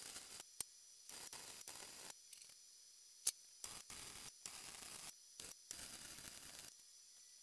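Welding arc crackling in short bursts, each a second or less with gaps between, as a sheet-metal floor-pan patch is plug- and stitch-welded in. Two sharp clicks stand out, about half a second in and near the middle.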